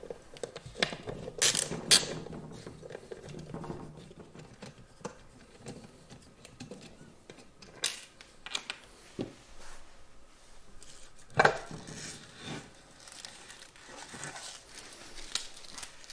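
Small screwdriver turning screws out of a model locomotive's transport board, with scattered sharp clicks and knocks of screws and parts being handled. The loudest clicks fall about two seconds in and again near the middle.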